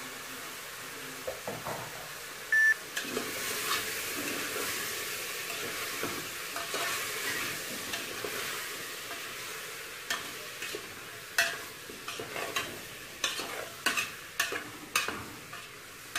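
Food sizzling and frying in a pot on a gas stove, a steady hiss, while it is stirred. A sharp metallic clink rings out about three seconds in, and a run of sharp clinks and knocks of metal against the pots follows in the last third.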